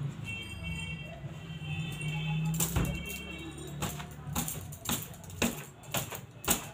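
Soft music, then from about two and a half seconds in a series of sharp snaps and knocks as a cloth is shaken out, the loudest near the end.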